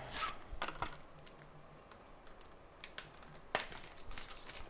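Scattered sharp clicks and short crackles of a replacement iPhone screen's plastic packaging being handled and unwrapped, the loudest click about three and a half seconds in.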